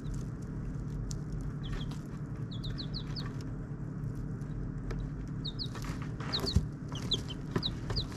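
Chickens clucking and short high bird chirps over a steady low hum, with one sharp knock past the middle.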